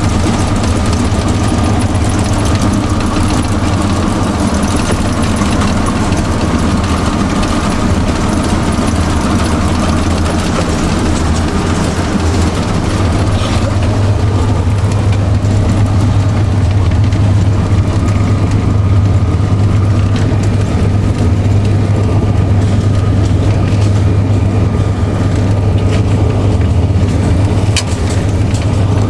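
A TU7 narrow-gauge diesel locomotive's V12 diesel engine running steadily with a deep, even drone, heard inside the cab while the train is moving. The drone gets a little heavier about halfway through.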